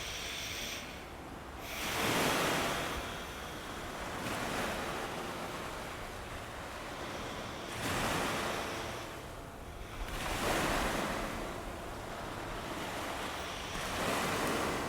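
Recorded ocean waves: a steady wash of surf that swells and ebbs, with a wave surging in about every few seconds.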